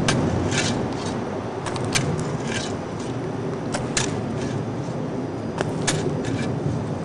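Scraping and crackling from digging at dry, leaf-strewn dirt: scattered short, sharp crackles over a steady low rumble.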